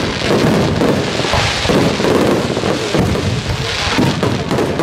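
Aerial fireworks display: shells bursting one after another in a dense run of booms and pops with no pause between them.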